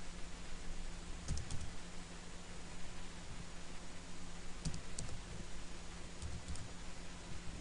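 Computer keyboard keys being typed in short bursts: a few keystrokes about a second in, a couple near the middle and a few more near the end, over a steady electrical hum and hiss.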